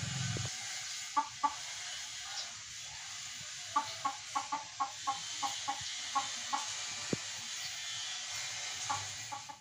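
A chicken clucking in short, repeated clucks: a pair early on, a quick run of about two to three a second through the middle, and a few more near the end, over a steady outdoor hiss. A low vehicle engine hum cuts off about half a second in.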